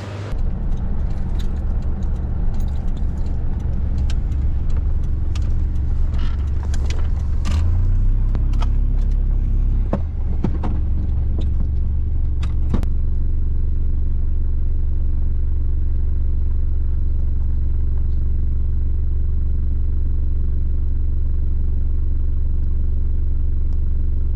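Car engine idling, heard from inside the cabin: a steady low hum whose pitch shifts briefly around eight to ten seconds in. A scatter of small clicks and rattles comes over it in the first half.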